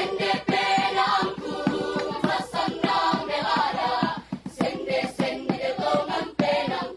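High school choir singing in harmony, with a quick, even beat of short percussive knocks underneath.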